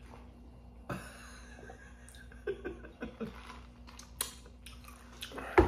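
A sip through a straw from a plastic fast-food soda cup, then small clicks and rustles as the cup is handled. A sharp knock near the end is the loudest sound.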